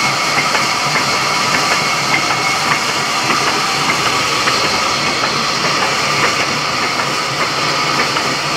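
Sawmill saw machine running steadily with a loud, even whine and hiss, and a faint regular ticking.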